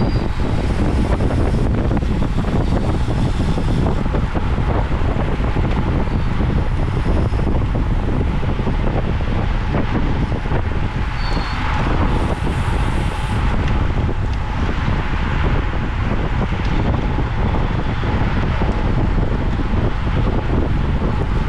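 Wind buffeting the microphone of a camera on a bicycle at racing speed: a loud, steady rushing noise, heaviest in the low end, with a faint steady tone running underneath.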